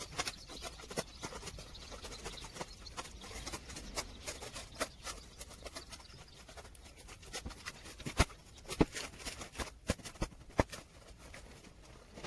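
Rain drops tapping on a tent canopy: scattered sharp ticks a few times a second, with a handful of louder knocks toward the end.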